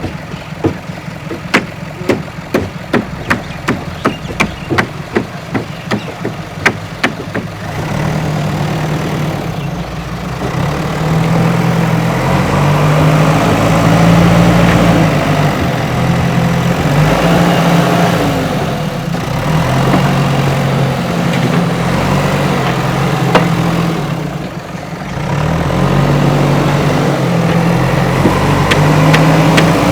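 Diesel engine of a JCB 3DX backhoe loader working. A regular ticking comes about two to three times a second over a lower engine sound for the first several seconds, then the engine runs louder under load, its pitch rising and falling, with a brief drop about three quarters of the way through.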